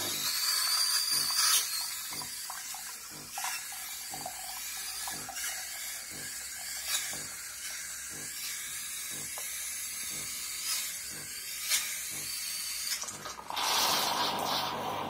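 Bosch VeroProfessional 300 coffee machine frothing milk for a cappuccino: a steady hissing, gurgling stream of steam-frothed milk pouring into a glass, with faint regular pulses about every half second. The hiss grows louder near the end.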